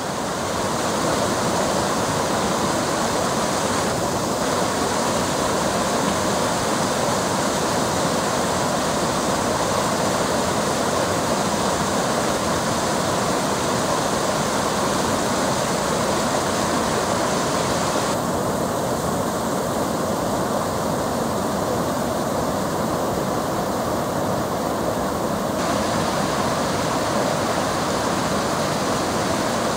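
Small waterfalls and a shallow stream cascading over rocks, making a steady rush of water. Its hiss dulls for a stretch past the middle and brightens again near the end.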